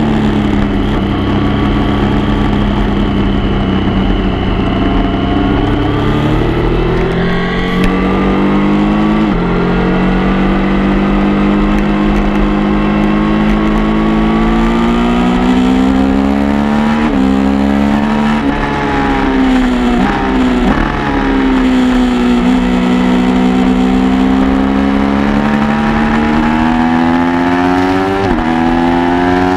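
Motorcycle engine at speed on a track, heard from a camera mounted on the bike. Its pitch repeatedly climbs under acceleration and falls off into corners, with several abrupt drops in pitch at gear changes.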